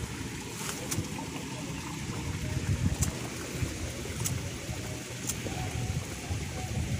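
Strong wind buffeting the microphone, a gusty low rumble, with five sharp light clicks.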